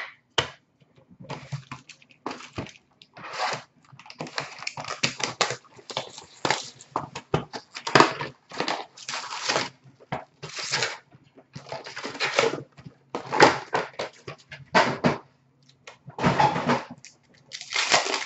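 Hands handling a cardboard hobby box and foil-wrapped packs of hockey cards: irregular bursts of rustling, crinkling and tearing, each lasting under a second.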